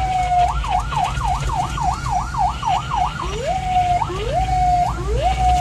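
Ambulance electronic siren, heard from inside the cab: a falling wail gives way about half a second in to a fast yelp of about three cycles a second. About three seconds in it switches to a repeated rise-and-hold tone about once a second. A steady low engine and road rumble sits underneath.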